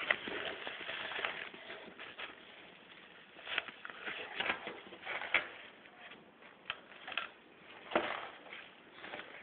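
Fabric rustling and handling noise as a hand rummages inside a cloth cosmetic bag, denser over the first two seconds, then scattered light taps and clicks as the bag is handled.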